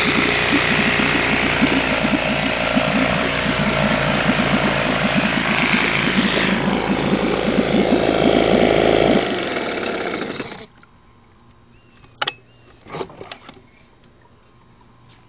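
Old outboard motor with its cowling off running in a test barrel of water, its propeller churning the water. About nine seconds in the running changes, and about a second and a half later the engine stops abruptly; a few sharp knocks follow.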